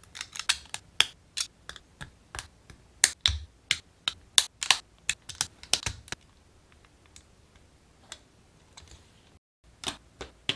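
Plastic model kit parts of a Gunpla shield and sword being fitted by hand, clicking and snapping together. A rapid run of sharp clicks fills the first six seconds, then a lull, then a few more clicks near the end.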